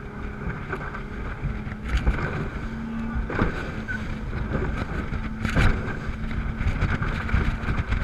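Rigid inflatable boat running fast over chop: wind buffets the microphone over a steady drone from its twin 350 hp Yamaha four-stroke V8 outboards, with a few hard thumps as the hull slams into waves.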